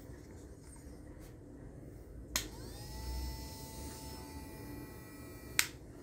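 A rocker switch clicks on and a small DC hobby motor spins up to a steady high whine, turning a cardstock blade in a plastic cup. About three seconds later the switch clicks off and the whine stops.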